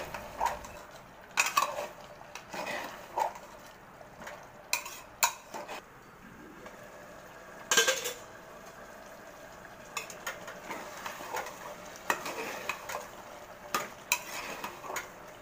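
A spoon stirring thick chickpea curry in an aluminium pressure cooker, scraping and knocking against the pot at irregular moments, the loudest knock about eight seconds in. A faint sizzle of the curry cooking on high flame lies underneath.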